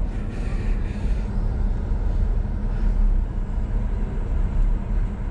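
Steady low rumble of a Jeep driving along the road: engine and tyre noise heard from inside the moving vehicle.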